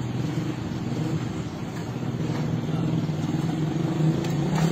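A motor vehicle's engine running steadily at a low, even pitch, a little louder near the end.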